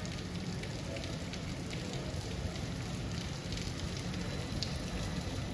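Steady rain falling, with many small ticks of drops landing close by.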